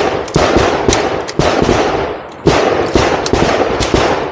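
Several handguns firing at once along a shooting line, rapid overlapping pistol shots with echoes. They come in two dense runs: one starting abruptly and a second about two and a half seconds in. Each shooter is firing a six-round string to the target's body.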